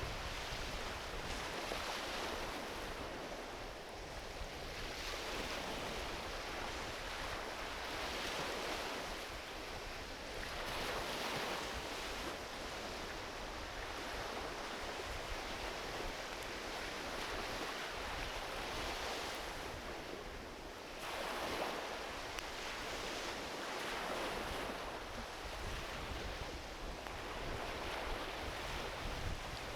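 Small ocean waves washing onto a beach, swelling and easing every few seconds, over a low rumble.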